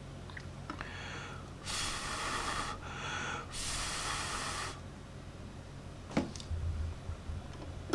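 A person breathing out hard twice, two puffs of breath each about a second long and about a second apart. A small click follows near the end.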